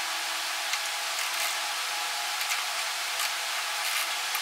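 Steady workshop background hiss with a faint hum, and a few faint, irregular clicks of a socket wrench being worked on the idler wheel's bolt.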